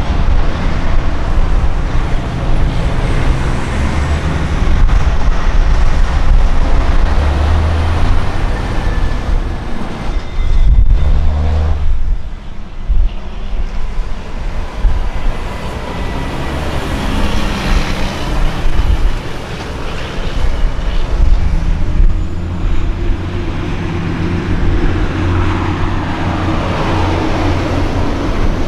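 Heavy-haul diesel semi-trucks pulling lowboy trailers away under load, their engines running loud. The engine note rises over the last few seconds as the second truck accelerates past close by.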